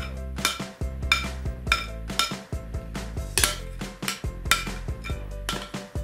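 A metal spoon clinking and scraping against a glass mixing bowl as thick batter is scraped out, over background music with a steady beat.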